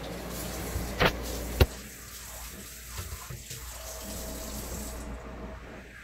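Water running with a steady hiss, broken by two sharp clicks about a second and a second and a half in.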